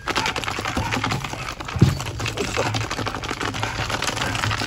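Dense, rapid clicking and rattling of Malinois puppies scrambling on a tiled floor and against a chain-link pen, their claws clattering, with one heavier thump about two seconds in.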